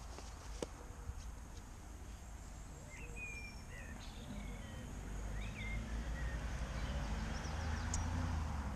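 Outdoor ambience of wild songbirds giving short chirps, with wind rumbling on the microphone and growing stronger in the second half. A single sharp knock about half a second in.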